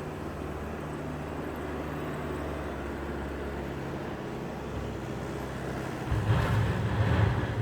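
Palazzani PB70 backhoe loader's diesel engine running steadily, growing louder about six seconds in.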